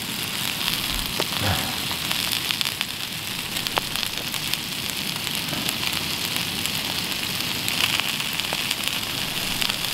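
Sirloin steak, potato and carrots sizzling and crackling steadily in a pan on a gas canister stove turned down low. A few sharp clicks, about a second in, near four seconds in and again near the end, are the knife meeting the plastic cutting board.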